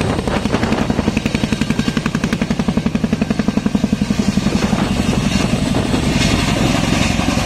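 CH-47 Chinook tandem-rotor helicopter in flight: its rotor blades thud in a rapid, even beat of about ten a second over a steady turbine hum.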